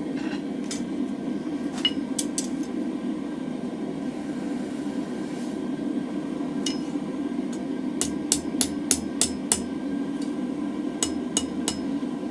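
Light hammer tapping a thin mild-steel bar on an anvil to straighten it: a few scattered ringing taps, then a quick run of about four blows a second, and three more taps near the end, over a steady low hum.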